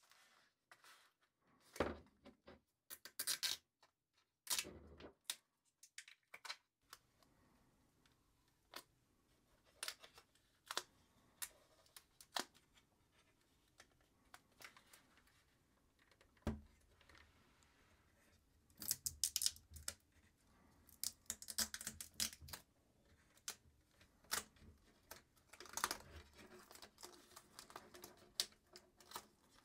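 Clear protective plastic film being peeled off a graphics card's plastic fan shroud: intermittent crackling and crinkling in short clusters, with a few soft knocks as the card is handled.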